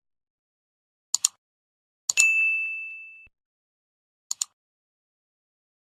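Subscribe-button animation sound effect: a quick double click about a second in, then a bright bell ding that rings out and fades over about a second, then another quick double click.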